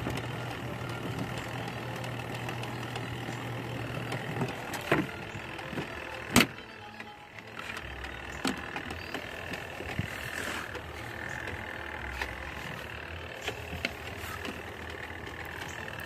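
Spin motor of a Costway twin-tub mini washing machine humming steadily, then stopping about four and a half seconds in. A few sharp clicks and knocks follow, the loudest about six seconds in. The spin basket is turning slowly while the machine still draws about 250 watts, which the owner thinks could be a slipping belt.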